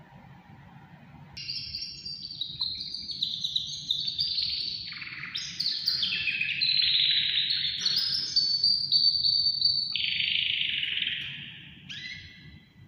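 Pet canary singing one long, varied song of rapid trills and warbled phrases. It starts about a second in and stops just before the end.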